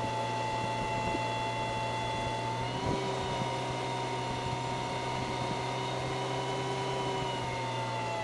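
Datsun Stanza doing a stationary burnout: the engine is held at high revs while the rear tyre spins and smokes, giving a steady, sustained pitch. The pitch steps up slightly about three seconds in and drops back near the end.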